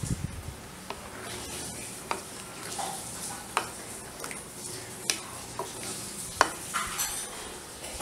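A spatula stirring thick curry in an aluminium pan, with scattered clicks and scrapes against the pan, the loudest about six and a half seconds in, over a soft hiss from the simmering gravy.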